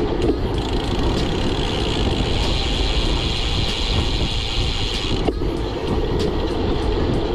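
Steady wind and road noise from a bicycle ride at speed, a constant rush heaviest in the low end, with a few faint clicks.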